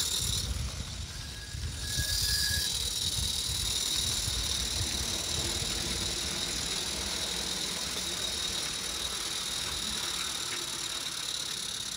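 Small live-steam model locomotive running along a garden railway, its steam giving a steady high hiss, with a short high tone about two seconds in. A low rumble on the microphone sits underneath, mostly in the first few seconds.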